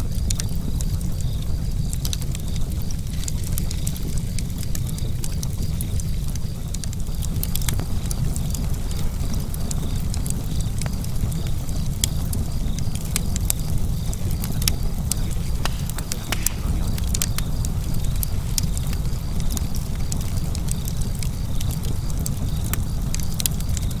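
Fire crackling: a steady low rumble with many scattered, irregular sharp pops and snaps.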